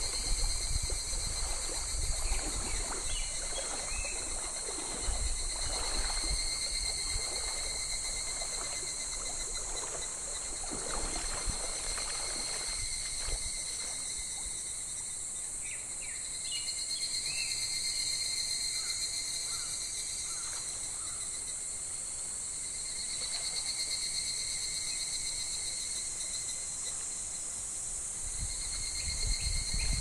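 Cicadas shrilling in a continuous summer chorus that swells and eases a few times, over the babble and splashing of a shallow stream, with the water sounds busiest in the first half.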